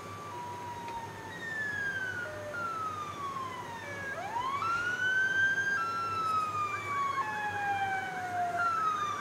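Malfunctioning police-car siren wailing oddly: its tones sink slowly in pitch with small stepwise drops, and about four seconds in one sweeps quickly up before drooping again.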